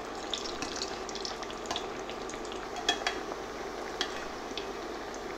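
Thin beef patties shallow-frying in hot vegetable oil in a cast iron skillet: a steady sizzle full of small crackles, with a few sharper ticks.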